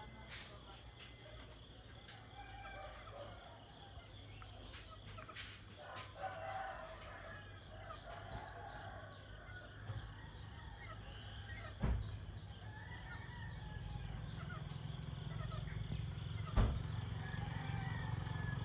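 Morning ambience of a rooster crowing and other birds calling over a faint steady chorus of insects. Two sharp knocks stand out, one about halfway through and another later, and a low rumble builds toward the end.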